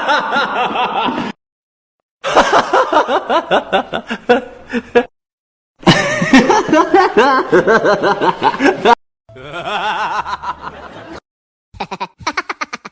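Laughter sound effects played back to back: about five short clips of chuckling and snickering, each ending in an abrupt cut to silence, the longer ones a quick run of ha-ha pulses.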